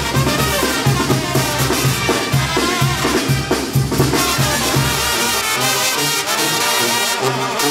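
Live Mexican banda brass band playing, with sousaphones pumping a steady pulsing bass under trumpets. The heavy bass pulse thins out about two-thirds of the way through.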